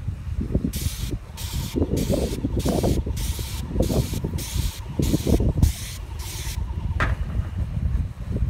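Airless paint sprayer gun hissing in short bursts, about two a second, as paint is sprayed onto a corrugated metal roof. The bursts stop about six and a half seconds in.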